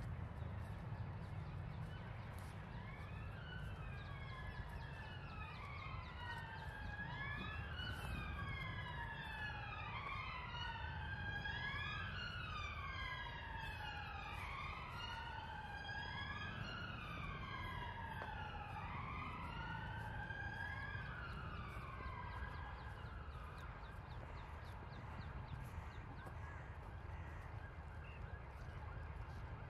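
Emergency vehicle siren wailing in slow rising and falling sweeps, starting a couple of seconds in and fading away past two-thirds of the way through. A steady low rumble runs underneath.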